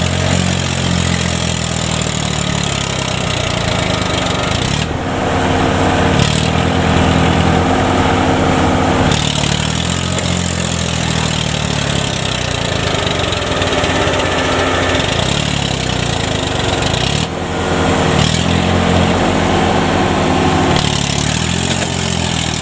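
Kubota combine harvester's diesel engine running hard under load while its tracks are stuck in deep mud, the revs falling and rising again several times as it tries to crawl out.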